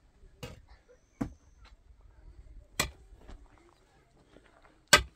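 Iron digging bar driven down into a hole in stony soil: four sharp strikes of metal on stone and gravel at uneven intervals, the last and loudest near the end, with faint scraping of earth between.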